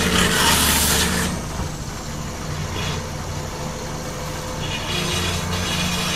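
Tractor-mounted Rotor stump-grinding drill chewing into a tree stump: a loud rasping grind of wood for about the first second, then mostly the tractor's engine running steadily as the cutter turns, the rasping coming back more faintly near the end.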